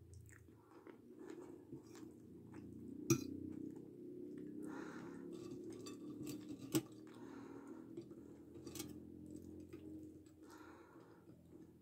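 Close-up chewing of a mouthful of chicken strogonoff with rice and fried potato sticks. Two sharp clicks of the metal fork against the plate come about three seconds in and again near seven seconds.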